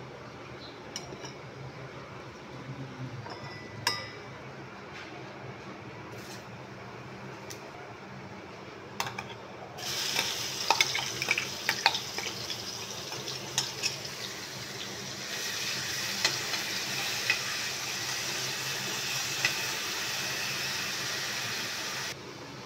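Chopped onion and garlic sizzling as they fry in hot oil in a metal kadai, with the clinks of a spoon stirring against the pan. The sizzle starts suddenly about ten seconds in, gets louder a few seconds later, and cuts off abruptly near the end. Before it there are only a few faint clicks and knocks.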